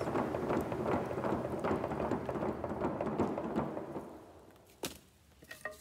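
Wood fire burning in an open clay hearth, crackling and popping steadily over a low rumble of flames. It drops away about four seconds in, leaving a few faint pops.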